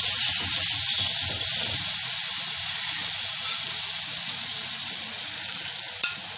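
Onion-tomato spice paste sizzling in oil in a frying pan while a wooden spatula stirs it: the masala fully fried down and ready for water. A sharp click about six seconds in.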